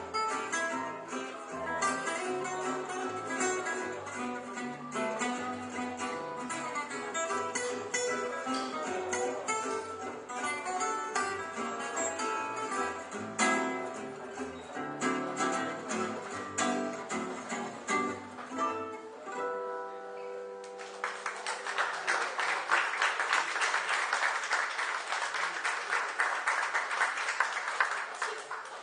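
Gypsy jazz band of acoustic guitars and double bass playing a fast tune, which ends on a held chord about two-thirds of the way through. Audience applause follows until near the end.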